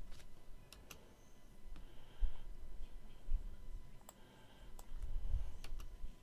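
Scattered, irregular clicks of a computer mouse and keyboard, a few every second or two, over a faint low rumble.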